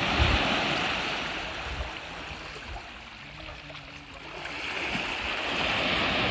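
Sea waves surging up a concrete slipway in white foam and washing back. The rushing swells at the start, eases off, then swells again about five seconds in.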